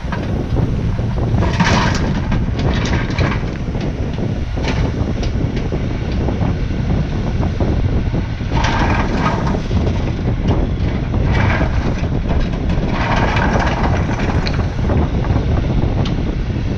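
Kubota KX-40 compact excavator running steadily, with several brief bursts of scraping and grinding and a few knocks as rock is moved.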